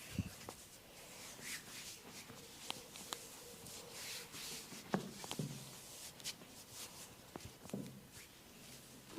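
Hands working over a person's hair and skin in a head massage: rustling and scratching with scattered soft clicks and a few dull pats, the strongest about five seconds in.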